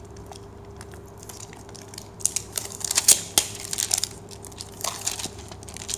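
Clear plastic shrink-wrap being peeled and crumpled off a perfume box: scattered crinkling and crackling that starts about two seconds in and is loudest a little past the middle.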